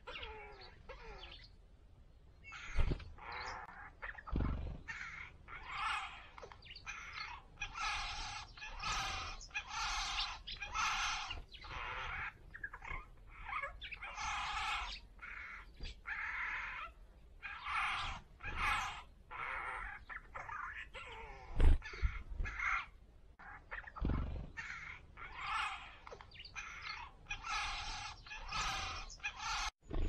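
Eurasian jay calling on and on in short, irregular bursts: gurgling, muttering and chattering notes with brief pauses between them. A few dull low thumps break in, the loudest about two-thirds of the way through.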